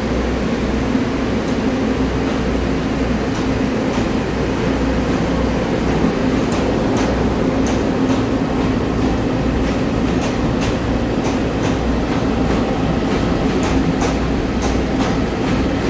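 A Taiwan Railway EMU900 electric multiple unit pulls out and runs past the platform with a steady hum from its motors and running gear. A run of sharp clicks sets in about six seconds in and comes more often toward the end.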